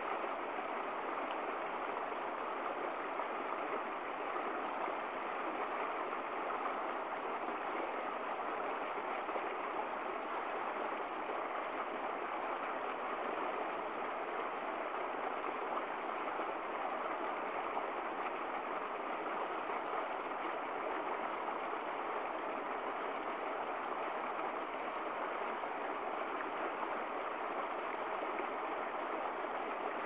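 Small stream splashing over rocks in a short cascade, a steady rush of water.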